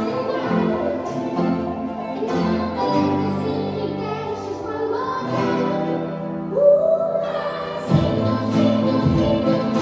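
Children's ukulele group strumming along with acoustic guitars while a group sings a song.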